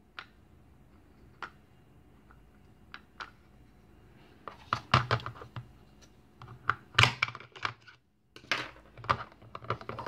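Plastic toy food handled on a plastic cutting board: a few light taps and clicks, then about halfway in clusters of clicks and short scraping rasps as a plastic toy knife cuts through a velcro-joined toy pea pod and the two halves are pulled apart.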